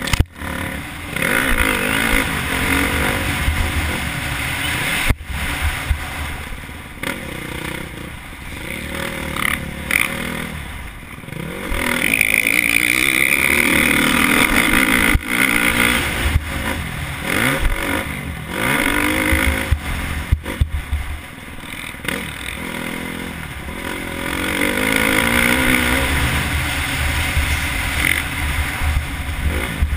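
KTM 350 SX-F's single-cylinder four-stroke engine, heard from the rider's helmet camera, revving up and down through the gears, held at high revs for a few seconds about twelve seconds in and again near the end. Wind buffets the microphone, and a few sharp knocks cut through.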